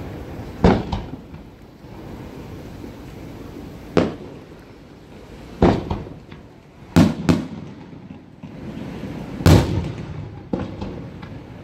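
Aerial firework shells bursting: about six sharp bangs a second or more apart, including a quick pair about seven seconds in, with the loudest bang about nine and a half seconds in.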